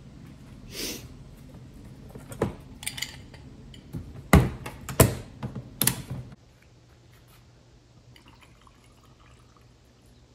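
Latches on a hard plastic crate being undone: a series of sharp clicks and clacks, the loudest three snapping open a little past halfway. After these it goes much quieter, with faint liquid being poured over ice near the end.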